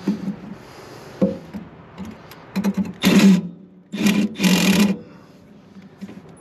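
Cordless drill running in several short bursts, driving a screw into the furnace exhaust pipe's clamp. There are a few light clicks of handling first, and the bursts start about two and a half seconds in; the last one is the longest.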